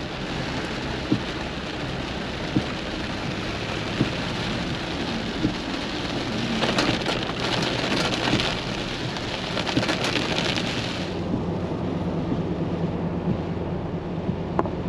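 Heavy rain pouring down in a thunderstorm. The downpour grows heavier about six seconds in and eases a few seconds later, with a few sharp taps in the first half.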